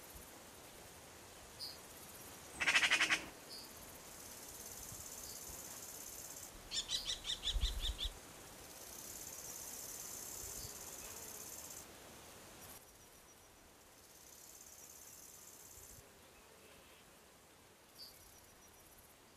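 Two short bursts of rapid, rattling bird calls, one about three seconds in and one around seven seconds, over a steady high chirring of insects.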